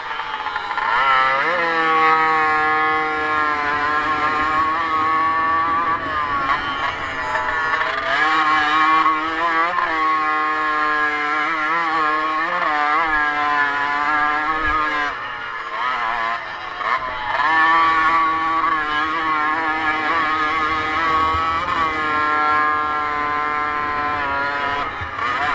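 Motocross motorcycle engine revving hard while being raced round a dirt track, its pitch climbing and falling again and again through gear changes and corners, with a brief lull past the middle.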